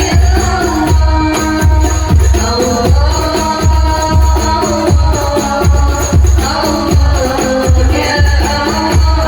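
Background music with a steady beat, about two bass beats a second.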